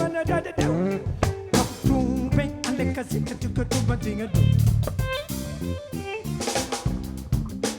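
Live band improvisation, with bass, guitar and drum kit playing together: plucked guitar and bass notes over drum hits.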